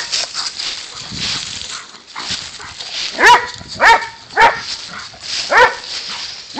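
Dogs playing chase over dry fallen leaves, with paws rustling through the leaves, then a dog barking four times in quick succession from about three seconds in.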